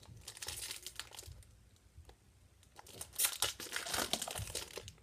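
Foil wrapper of a TeamCoach trading card pack crinkling and tearing as it is handled and ripped open, in two spells of rustling, the second louder.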